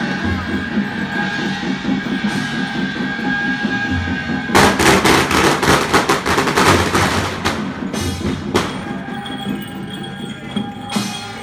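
A string of firecrackers crackling in a rapid run of sharp bangs for about three seconds, starting about four and a half seconds in, with a few more cracks a little later. Under it plays steady temple-procession music with a regular low beat.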